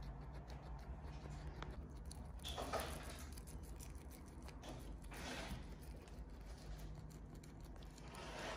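Guinea pig chewing and tearing fresh dill and spinach: a run of fine crunching clicks, with a few louder rustles of the greens.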